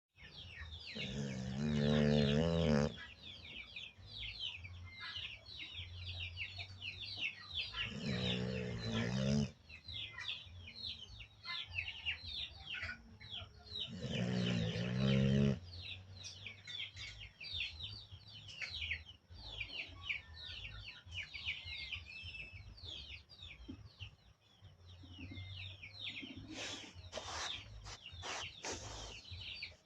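A sleeping dog snoring: three long, loud snores of about two seconds each, roughly six seconds apart. Birds chirp rapidly and steadily in the background.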